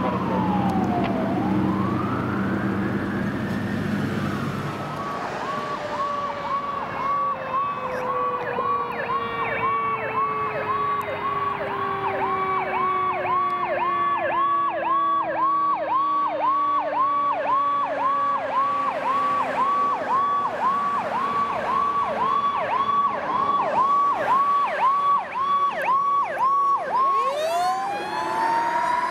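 Fire truck sirens. First a slow wail over a diesel engine; then a ladder truck's siren yelping rapidly, about two cycles a second, with a lower siren tone sliding slowly down beneath it. Near the end the yelp drops and climbs back into a wail.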